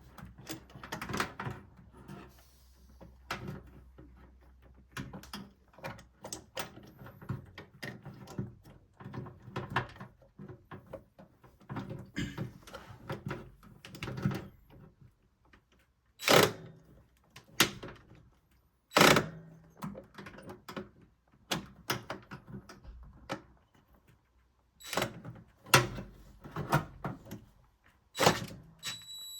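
Irregular knocks, clicks and clatter of tools and parts being handled during a washing-machine repair, with a few louder thuds.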